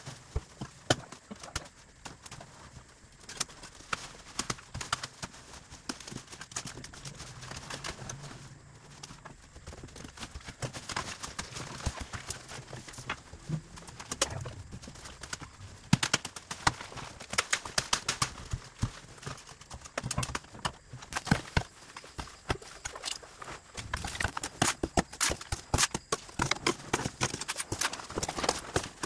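Irregular knocking and clattering of hard objects: many sharp hits in no steady rhythm, coming thicker and louder in the second half.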